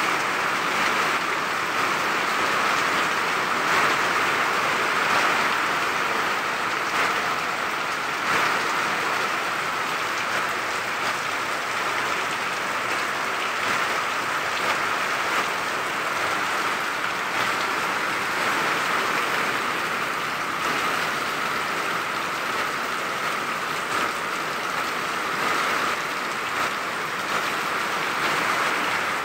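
Heavy tropical downpour: dense, steady rain hitting the yard, with runoff pouring off the roof edges and splashing down.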